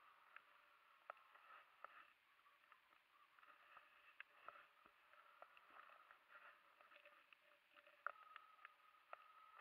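Near silence, with faint scattered ticks and a faint thin steady tone near the end.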